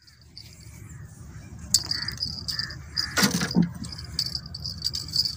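Insects chirring steadily at a high pitch over a low rumbling background, with one loud harsh call a little over three seconds in.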